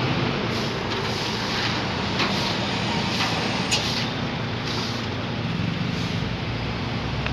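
Road traffic: steady engine and tyre noise from passing vehicles, including a motorcycle going by close.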